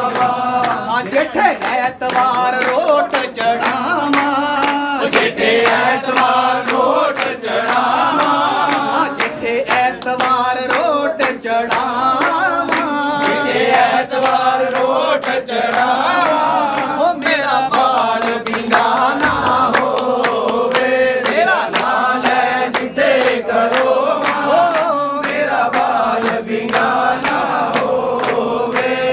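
Group singing of a Punjabi devotional bhajan, voices carrying the melody over a steady beat of hand clapping.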